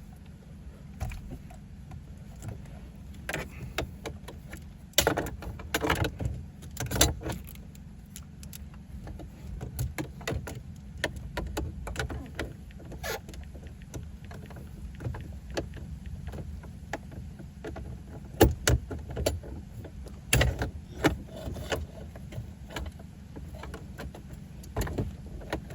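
Scattered metallic clicks, taps and clanks of hand tools, a socket on a flexible extension being worked against metal parts under a car's dash, with a few louder knocks and a steady low rumble underneath.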